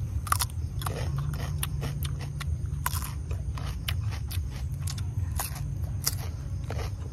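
Crisp snapping and leafy rustling of cucumber vines being handled as cucumbers are picked: a dozen or so sharp cracks at irregular intervals over a steady low rumble.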